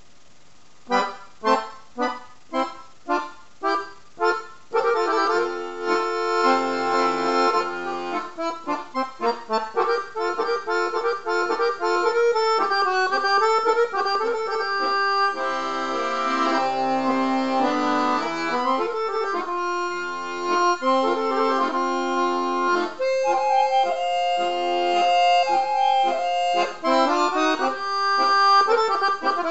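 Accordion playing. After a brief pause it opens with a run of short separate chords, about two a second, then goes into a continuous tune with held notes from about five seconds in.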